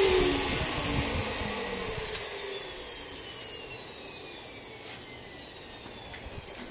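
A machine's motor spinning down after being switched off: a whine falling in pitch under a fading hiss, with a few light clicks in the second half.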